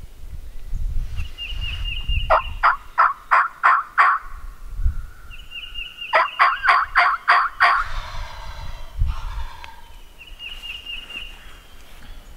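Turkey calling: two loud runs of about six evenly spaced notes, roughly three a second, with a trailing call after the second run. A small bird chirps in short high runs in between.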